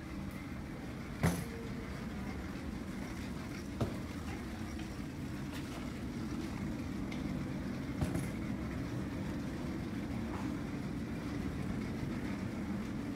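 Steady low mechanical drone of airport ground machinery, heard from inside an enclosed jet bridge, with three sharp knocks about one, four and eight seconds in.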